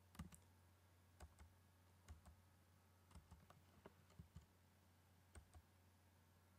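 Faint computer keyboard keystrokes: scattered single taps and quick pairs of keys, over a low steady hum. The typing stops about two-thirds of the way in.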